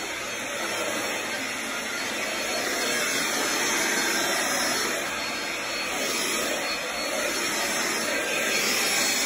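Stick vacuum cleaner running steadily as it is pushed over a hard floor.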